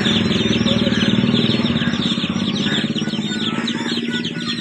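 A small engine running steadily, a low pulsing hum, under the quick, continuous chirping of many small birds.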